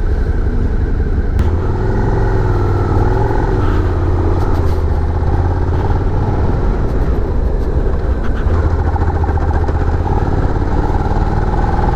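Suzuki SV650's 645cc V-twin engine running as the motorcycle is ridden through the gears, a steady loud drone whose pitch wavers up and down a little.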